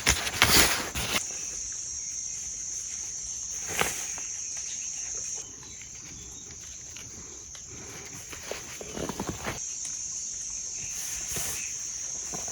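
A steady, high-pitched chorus of insects. Rustling footsteps come in the first second, and a single sharp click about four seconds in.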